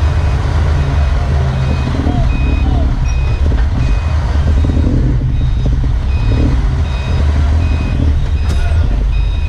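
Diesel engine of a Tadano GT550E truck crane (Nissan Diesel PF6TB) running steadily as the crane is manoeuvred slowly, with a warning beeper sounding short high beeps at regular intervals over it.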